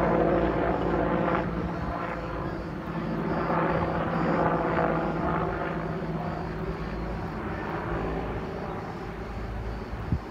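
Firefighting helicopter flying over, its steady engine and rotor drone growing quieter over the seconds, with a short knock near the end.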